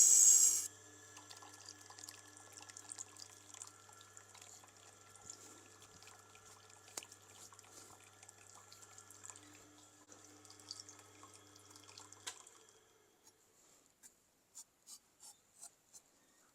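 Tormek wet-stone sharpener: a loud stretch of grinding cuts off within the first second, then the motor hums steadily while the wheel turns through its water with faint wet rubbing and dripping. The hum stops suddenly about twelve seconds in as the machine is switched off, and a few light clicks follow.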